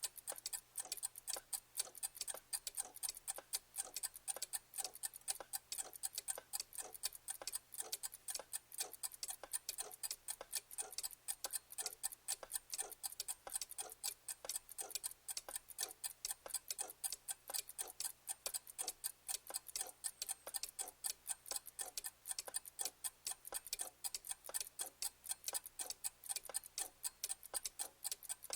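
Clock ticking steadily, with quick, even ticks several times a second.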